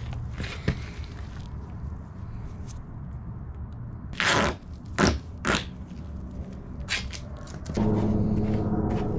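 Duct tape being pulled off the roll in three short rips about halfway in, with light scraping as it is pressed along the edge of the tile. Near the end a steady low hum starts.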